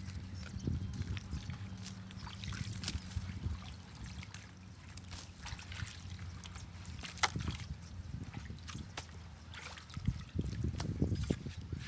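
Muddy water trickling out of a culvert pipe, with scattered clicks and splashes as sticks are pulled from the pipe mouth by hand. The splashing grows louder and busier about ten seconds in, as the hand works in the water.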